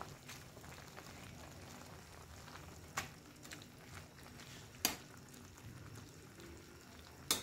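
A ladle stirring noodle soup in a wok, with the broth simmering and hissing steadily. The ladle knocks sharply against the wok three times, about three, five and seven seconds in.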